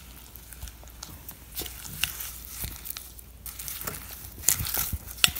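Spatula stirring foam-bead slime in a glass bowl: wet, crackly squishing with irregular sharp clicks as the beads and glue are mixed.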